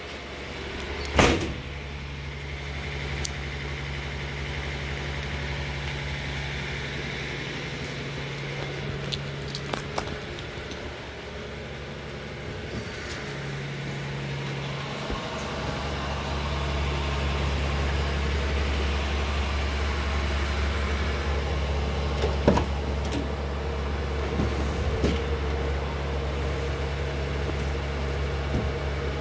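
A steady low machine hum that gets louder about halfway through, with a sharp thump about a second in and scattered knocks and rustles as a fabric car cover is handled.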